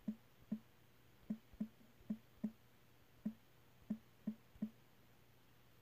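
About ten soft, quick taps at an uneven pace, typing on a smartphone's on-screen keyboard. They stop about three-quarters of the way through.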